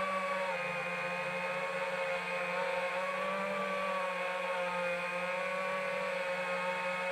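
FPV quadcopter's electric motors and propellers whirring steadily: several close tones whose pitch drifts slightly up and down with the throttle.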